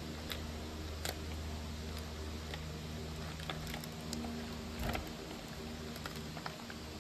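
Scattered light plastic clicks of clear polycarbonate keycaps being handled and pressed onto keyboard switches, over a steady low room hum.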